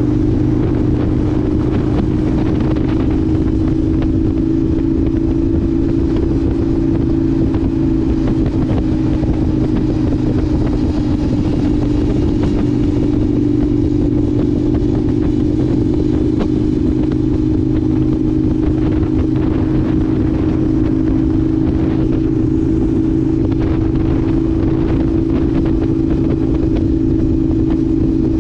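Indian FTR 1200 S motorcycle's V-twin engine running at steady, near-constant revs while riding, a steady drone with only slight rises and dips in pitch.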